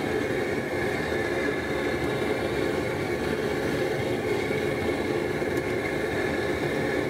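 Bayou Classic SP40 double-jet propane burner running under a stockpot with a steady rushing noise.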